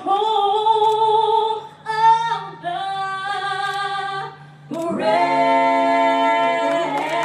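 Singing with long held notes over a steady low tone. The singing breaks off briefly about two seconds in and again between four and five seconds in.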